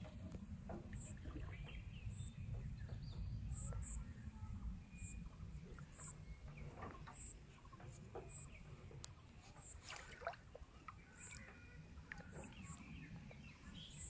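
Faint rural outdoor ambience: a low wind-like rumble, a short high chirp repeating roughly once a second, and scattered bird calls and light clicks.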